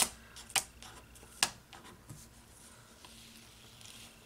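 Sticker paper crackling as a planner sticker is peeled up and moved on the page: three sharp crinkles in the first second and a half, then faint rustling.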